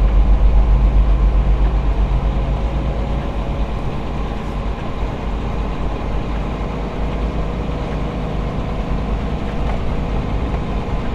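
Cab interior of a 2013 International ProStar Eagle Plus semi truck moving slowly, its diesel engine running with a steady deep rumble that eases a little after the first few seconds.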